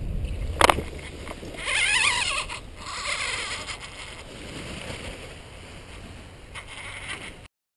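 Wind rushing on a helmet-mounted microphone fades out as the paraglider touches down, with a sharp knock about half a second in. Then comes rustling and flapping from the deflating paraglider wing's fabric, loudest around two to three seconds in, before the sound cuts off abruptly near the end.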